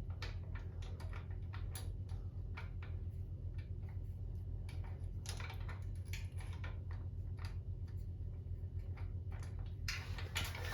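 Scattered light clicks and taps as a motorcycle transmission filler cap is worked back into place by hand, which is fiddly, over a steady low hum.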